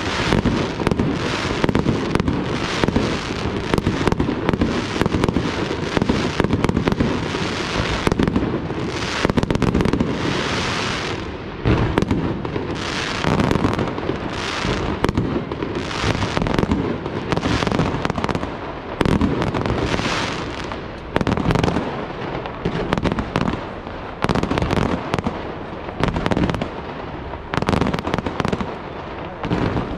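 Aerial firework shells bursting in a dense, near-continuous barrage of bangs, many overlapping, with only brief dips in between.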